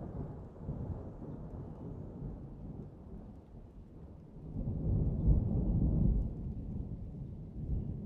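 Rain falling, with a low rumble of thunder that swells about halfway through and then fades.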